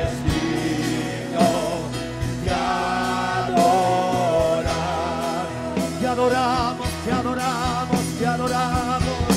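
Gospel worship music: a voice singing long held notes over a band with drums.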